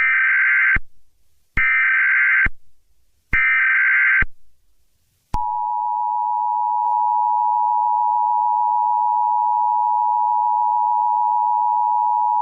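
Emergency Alert System tones. Three short bursts of SAME header data come first, each just under a second long with short gaps between. About five seconds in, the steady two-tone EAS attention signal begins and holds.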